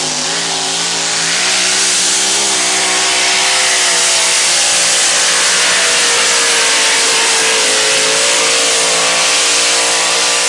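Modified mini pulling tractor's engine running flat out under load as it drags the weight-transfer sled down the track. The engine holds a loud, steady pitch that dips slightly midway and climbs again, over a heavy hiss.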